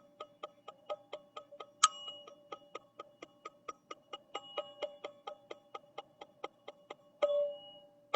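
Teal ZenTube sound instrument played with fast, even light strikes, about five or six a second, each tick leaving steady ringing tones that hang on. A louder strike comes about two seconds in, and a louder ring just after seven seconds.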